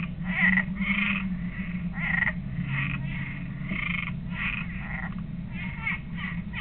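A treefrog croaking in a string of short calls, about two a second, over a steady low hum.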